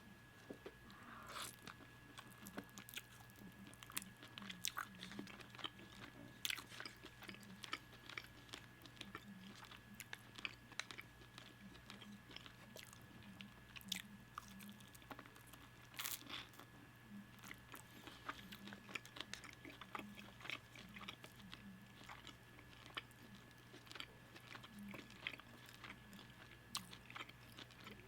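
Close-miked eating of a crispy chicken wing: irregular biting, crunching and chewing with small wet mouth clicks, over a faint steady hum.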